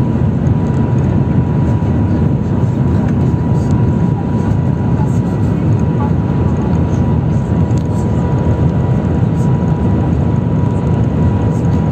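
Steady low rushing noise inside the cabin of the Shanghai Transrapid maglev train cruising at 300 km/h, with a thin steady high whine over it.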